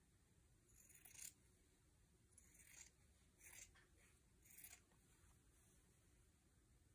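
Near silence broken by four faint, short swishes of cotton fabric scraps being handled, about a second apart.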